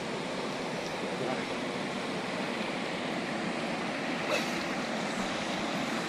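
Shallow river water rushing over stones, a steady even hiss, with one brief knock about four seconds in.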